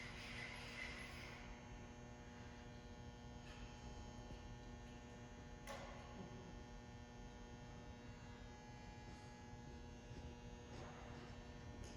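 Faint, steady electrical hum of the room, with a single faint click about six seconds in.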